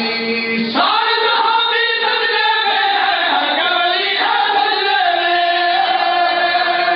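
A man chanting a Punjabi devotional verse in praise of Imam Hussain, in long, drawn-out melodic notes that glide between pitches, sung into a microphone.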